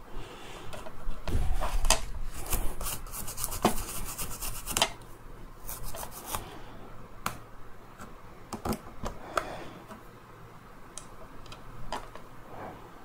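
A small brush scrubbing at the silicone-covered connector on a scooter battery's circuit board. There is a fast run of rasping rubbing strokes from about a second and a half in to about five seconds, then scattered clicks and scrapes as the board is handled and brushed.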